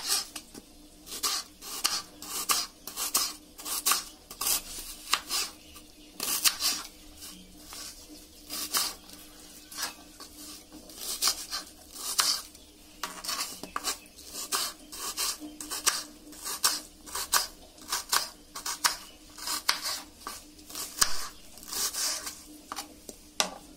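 Kitchen knife chopping a large red onion on a cutting board: a long, uneven series of sharp taps as the blade hits the board, roughly one or two a second.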